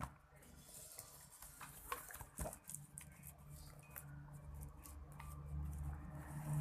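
Faint scattered clicks and scrapes of a stirrer working slime in a mixing container. A low hum rises near the end.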